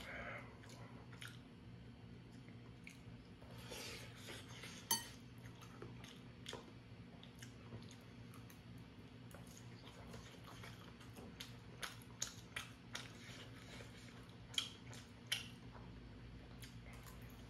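Close, faint eating sounds: chewing, with sharp clicks and clinks of a metal fork and chopsticks against a stainless steel bowl and plates at irregular moments, over a steady low hum.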